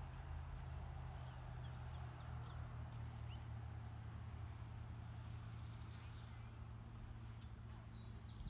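Small songbirds chirping and whistling in short scattered calls, with a longer trill about halfway through, over a steady low rumble.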